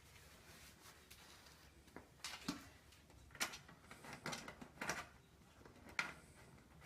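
Faint handling noises: about six short clicks and rustles, starting about two seconds in and spread over the next four seconds, against quiet room tone.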